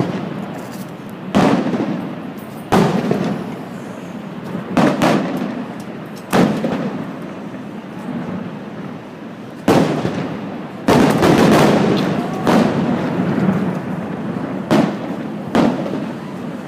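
Fireworks shells bursting overhead: sharp bangs every second or two, each trailing off in an echoing rumble, with a denser run of bursts about eleven seconds in.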